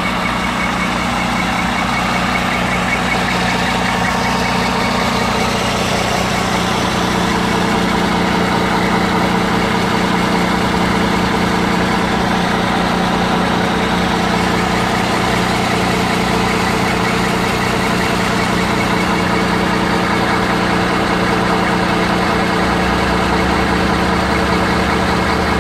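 MAN 19.463's straight-six diesel idling steadily, heard up close at the engine with the oil filler cap removed.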